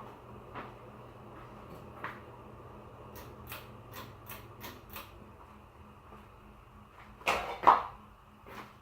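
Hugger ceiling fan running with a steady motor hum and a light rush of air, with scattered light clicks and ticks. A pair of louder knocks comes near the end.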